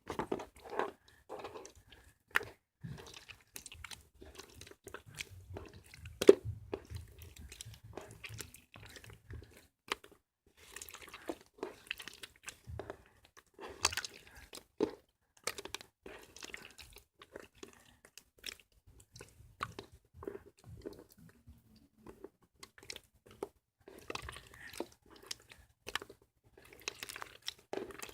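Slime being squeezed, poked and stretched by hand, making irregular crackling, popping clicks and squelches.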